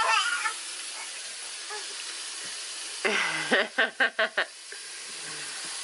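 A short burst of laughter, five quick 'ha'-like pulses about three seconds in, over a steady background hiss.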